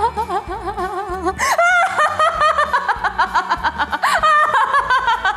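A woman laughing hysterically in quick, wavering ha-ha-ha pulses, with a louder, higher burst about a second and a half in.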